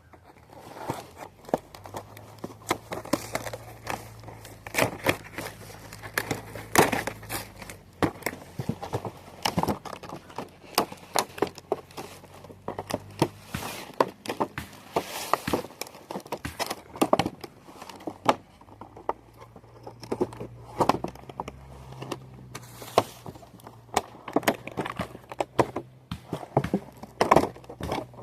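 Product packaging being cut and worked open by hand: irregular crinkling, crackling and snapping of the wrapping.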